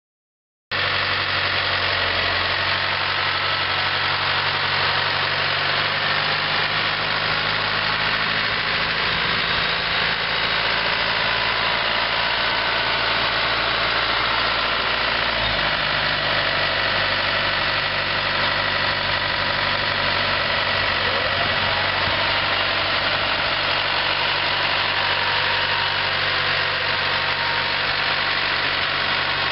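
New Holland TS100A Plus tractor's four-cylinder Case New Holland diesel engine running steadily at low engine speed while the tractor is driven slowly. Its low note shifts slightly about halfway through.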